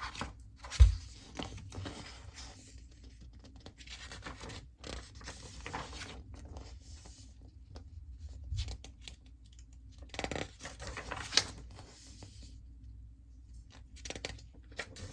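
Paper rustling and scraping as a picture book's pages are handled and turned, in several separate bouts, with a single low thump about a second in.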